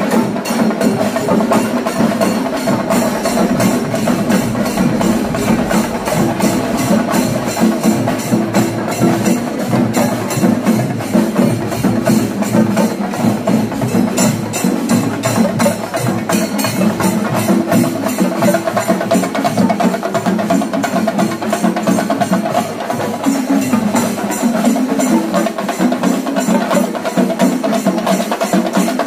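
Kerala festival percussion ensemble of drums and cymbals playing a dense, unbroken rhythm.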